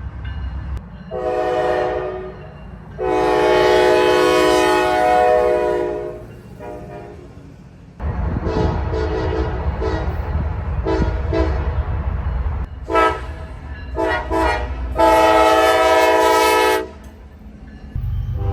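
Locomotive air horns sounding a string of blasts: a short blast about a second in, then a long one. After an abrupt change, a train rumbles along with a run of short toots, three quick blasts and a final long blast near the end.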